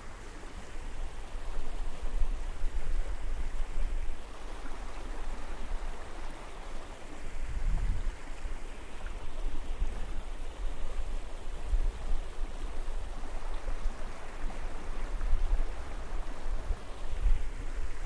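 Ocean surf washing on a black sand beach, a steady hiss of moving water. Wind buffets the microphone in low rumbling gusts, strongest about eight seconds in and again near the end.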